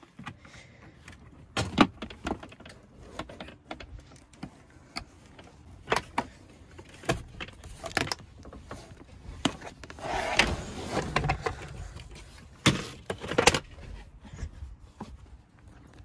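A 2014 Dodge Grand Caravan's fold-into-floor seat being stowed by hand: a string of sharp clicks and clunks from the seat's latches and hinges. About ten seconds in there is a scraping shuffle lasting roughly a second, followed by two loud clunks.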